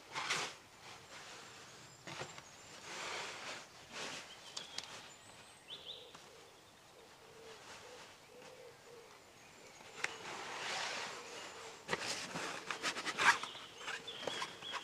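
Woodland outdoor sound: irregular rustling and a few sharp clicks and knocks, with faint bird calls in the background.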